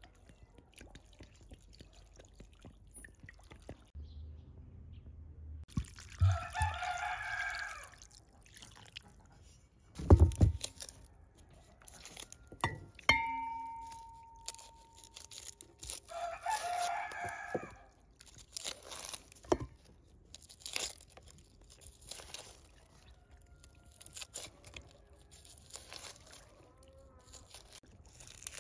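A rooster crowing twice, each crow about two seconds long, the first about six seconds in and the second about sixteen seconds in. A loud thump about ten seconds in and a short ringing clink near thirteen seconds, among small clicks and scrapes of knife and bowl work.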